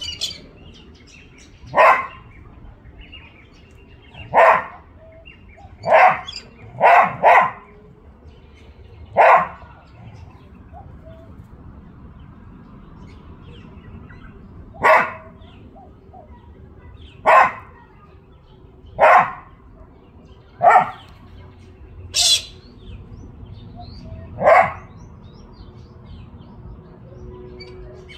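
Australian cattle dog (blue heeler) giving about a dozen single barks, spaced irregularly a second or several apart, with a pause in the middle. About 22 seconds in there is one higher, thinner screech from a galah in the tree.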